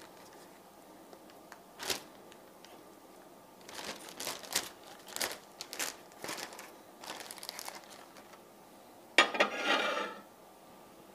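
Plastic zip-top bag crinkling in scattered bursts as pieces of raw beef are dropped into it by hand, with a louder rustle about nine seconds in.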